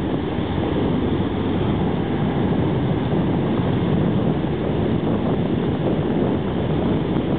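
General cargo ship passing close by, a steady low rumble mixed with wind on the microphone.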